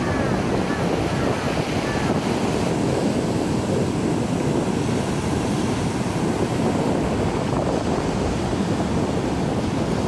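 Steady wash of small waves and surf on a beach, with wind rumbling on the microphone.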